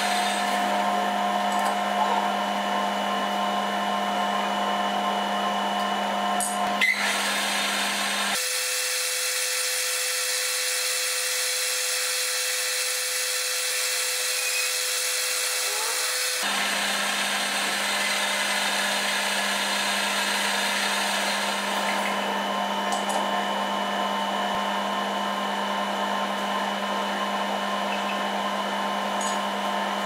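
Metal lathe running steadily, a motor hum with a steady whine, while the spinning steel pen body is hand-finished with a file, cloth and abrasive paper. The hum changes abruptly a few times, about 7, 8 and 16 seconds in.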